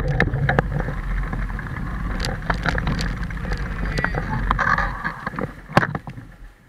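Wind rumbling on the microphone of a camera moving along a footpath, with frequent sharp clicks and rattles as the camera jolts over bumps.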